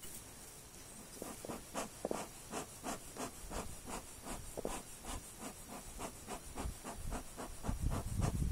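A beekeeper's gloved hands and tool scraping and rubbing at the frames of an open wooden hive box, quick scratchy strokes about four a second, with low rumbling near the end.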